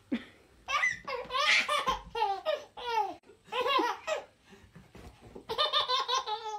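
A baby laughing in repeated high-pitched bursts, ending in a quick run of giggles.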